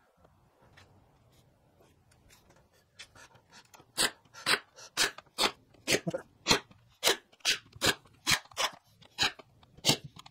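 Cordless brad nailer firing rapid shots, about two a second, each a sharp snap, nailing the glued top down. Faint handling knocks come before the first shot, about four seconds in.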